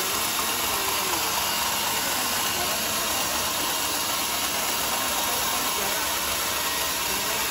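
Sawmill band saw cutting lengthwise through a large teak beam: a steady, even rushing noise of the blade in the wood that holds at one level throughout.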